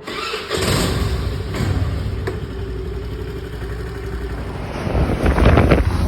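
A motor vehicle running steadily, its engine and travel rumble loud, growing louder about five seconds in.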